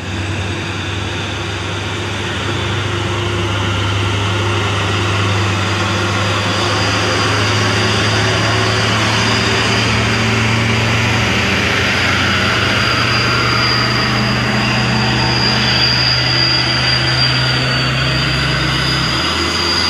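Heavy diesel truck engine running steadily as an Isuzu Giga box truck drives past at close range, a constant low drone that stops just before the end.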